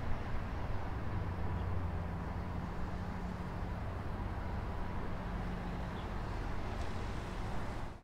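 Steady outdoor background rumble with a low, even hum, like distant traffic; no siren is sounding.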